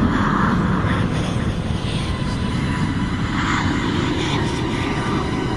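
Steady low rumbling drone, like a distant engine, with faint held tones above it: an eerie horror-soundtrack sound effect.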